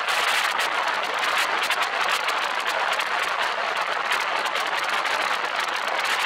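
Steady rush of wind over the microphone of a camera mounted outside a vehicle moving at road speed, a constant hiss with a fast flutter, mixed with tyre and road noise.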